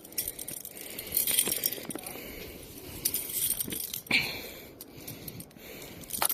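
Metal fish stringer jangling and clinking as it is handled and untangled, with scattered small clicks and rustling. A brief high squeak comes about four seconds in.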